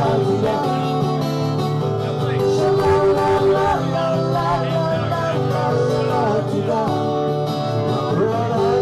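Live acoustic music: an acoustic guitar playing steadily with a wavering melody line over it.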